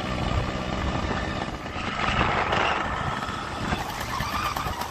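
Yamaha RX 100 two-stroke single-cylinder motorcycle engine running while the bike rides along, with a louder rush of noise about two seconds in.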